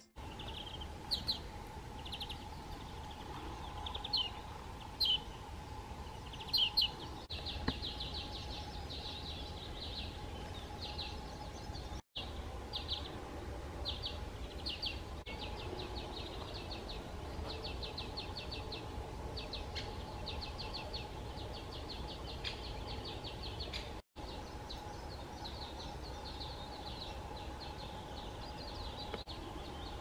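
Small birds chirping and trilling: scattered short high chirps at first, then quick repeated trills from about seven seconds in.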